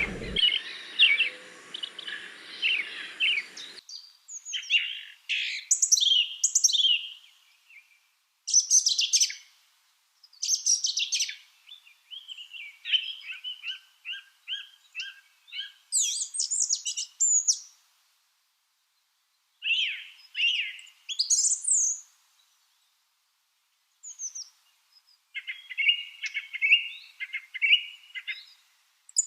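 A thrush singing: short, varied phrases of clear, high song, each followed by a pause, with a longer quiet gap about two thirds of the way through. A faint hiss under the song for the first few seconds cuts off suddenly.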